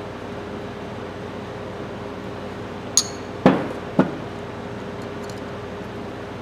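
Metal hand tools clinking and knocking on a workbench: a sharp, ringing metallic clink about three seconds in, then two duller knocks half a second apart.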